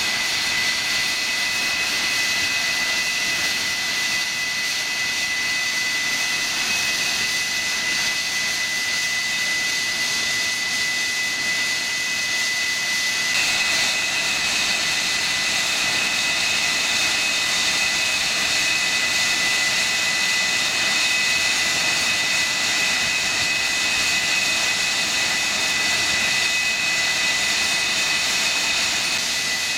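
English Electric Lightning's twin Rolls-Royce Avon turbojets running steadily: a high-pitched whine over a rushing hiss. The whine shifts slightly about halfway through.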